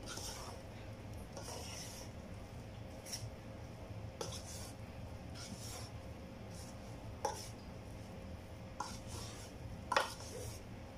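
Wooden spatula stirring and tossing chunks of unripe jackfruit with toasted grated coconut in a metal pot: irregular scraping strokes, with a few sharp knocks of the spatula against the pot, the loudest about ten seconds in.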